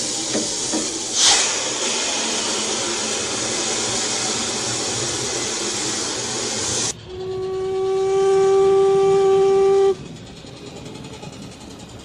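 BR Standard Class 4 steam locomotive, heard from a 1970 LP recording: a loud, steady rush of steam for about seven seconds. It cuts off abruptly into a single steady steam-whistle blast held for about three seconds, which stops sharply, leaving a fainter hiss.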